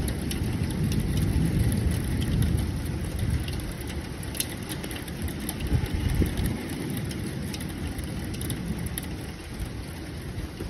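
Thunderstorm over a city: a low, rolling rumble that swells and fades, with faint ticks of rain.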